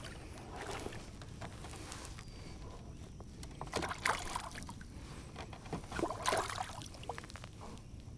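Water sloshing and splashing at the side of a kayak as a largemouth bass is held in the water and struggles, with a few short splashes about four seconds in and again around six seconds in.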